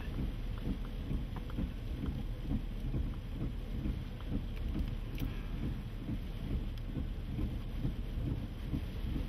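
Storm noise heard from inside a vehicle: an uneven low rumble of wind and rain that rises and falls, with a few faint clicks.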